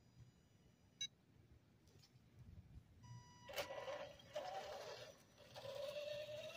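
Whine of the small electric motors and gears on radio-controlled model trucks, starting about three seconds in and rising slowly in pitch as the tractor-trailer pulls away. A brief click about a second in.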